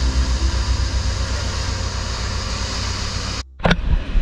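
A motor yacht's diesel engines drone steadily under a loud rush of wake water and wind while the boat runs at speed offshore. The sound cuts off abruptly about three and a half seconds in and gives way to a few short knocks.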